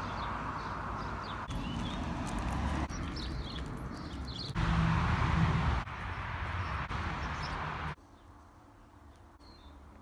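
Outdoor roadside ambience: birds chirping over a steady background of outdoor noise, which jumps in level at each cut and grows louder for about a second midway. Near the end it drops to the quiet of a room.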